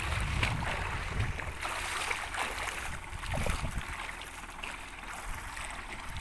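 Water splashing and rushing as a vehicle drives through it, over a steady low rumble.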